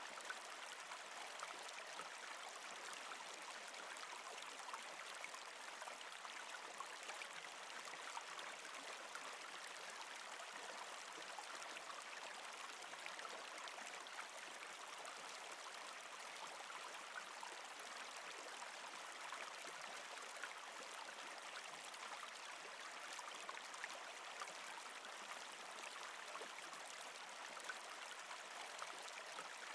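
Faint, steady rush of a flowing stream, an even hiss with no breaks.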